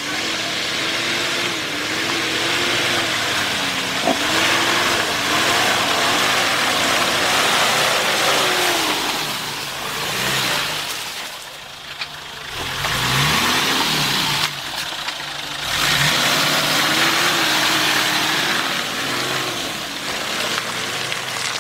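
Lifted off-road 4x4's engine revving up and down in quick, repeated swells as it claws through deep mud, over a steady hiss of tyres churning the mud. About halfway through the engine eases off briefly, then revs hard again.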